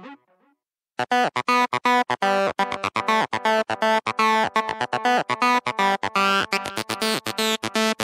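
Arturia Acid V, a TB-303-style software bass synthesizer, playing a fast arpeggiated sequence of short, evenly spaced notes, starting about a second in after a brief silence. The tone grows brighter near the end.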